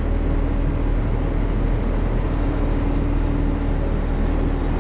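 Vehicle engine running steadily at an even speed: a constant low drone with a steady hum.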